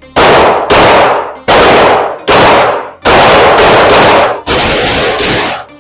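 Glock 19 9mm pistol firing a steady string of shots, about one or two a second, each shot trailing off in echo.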